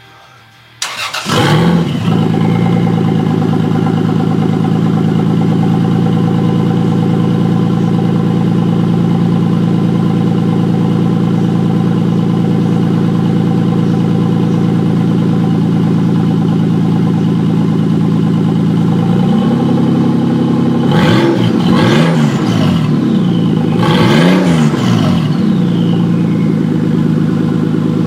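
Toyota Supra's 2JZ-GTE twin-turbo straight-six cranking and catching about a second in, then idling steadily. About twenty seconds in the throttle is blipped several times, and the pitch rises and falls with each rev.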